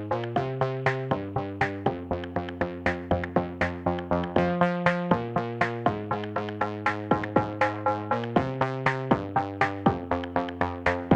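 Background electronic music: quick repeated synthesizer notes, about four a second, over chords that change every second or so.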